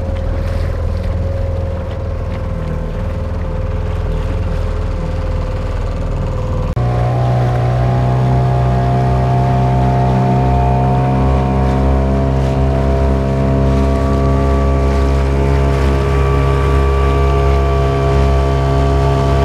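A boat engine running steadily under way. About seven seconds in, its sound steps up abruptly, becoming louder and higher.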